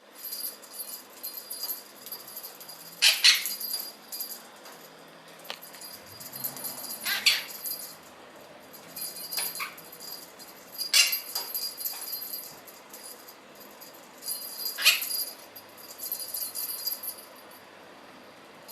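Blue Quaker parrot playing with a small metal bell toy: the bell jingles on and off, mixed with the parrot's squawks and chattering. Loud, sharp peaks come about every four seconds.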